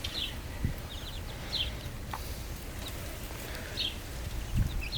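Young chicks peeping in short high chirps, a few scattered clusters, over a low rumble with a couple of soft bumps.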